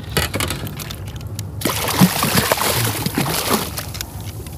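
A hooked redfish thrashing and splashing at the surface against the boat's side. The splashing comes as one burst about two seconds long, starting before the middle, with a few light splashes and drips before it.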